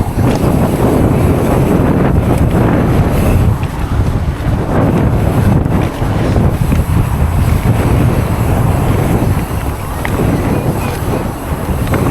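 Loud wind buffeting a chest-mounted camera's microphone, a steady low rumble that rises and falls a little with the gusts.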